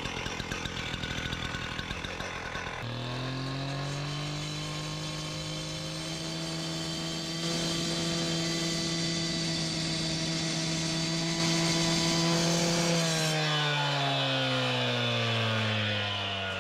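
Handheld cut-off saw revving up to speed about three seconds in and cutting through a stone veneer panel, with a gritty grinding noise over the steady motor for several seconds. Near the end the saw's pitch slides down as it winds down.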